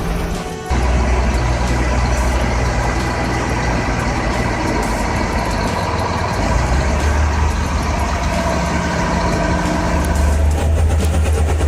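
Heavy diesel engine running steadily, a deep drone that grows louder about six and a half seconds in and again near the end. A brief drop in the sound comes about half a second in.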